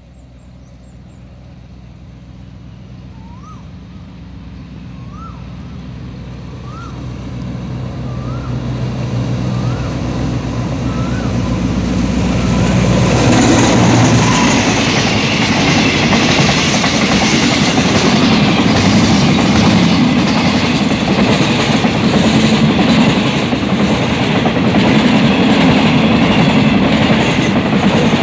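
An Alsthom diesel-electric locomotive approaches with a steady engine drone that grows louder and passes about halfway through. A string of empty oil tank wagons then rolls past close by, with loud rumbling and rhythmic wheel clatter over the rail joints.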